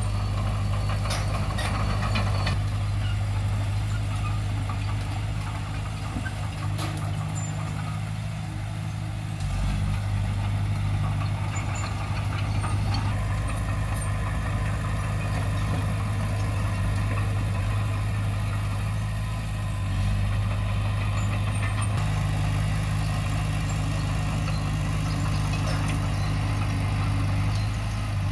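Diesel engine of heavy earthmoving equipment running steadily with a deep hum. It eases off briefly and picks up again about ten seconds in.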